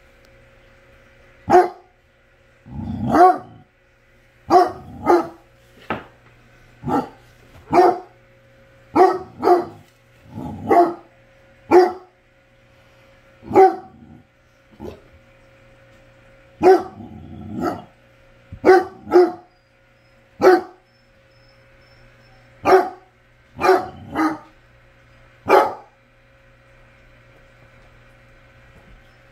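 Basset hound barking in single barks, about twenty of them at irregular intervals of one to two seconds, stopping near the end. A faint steady hum runs underneath.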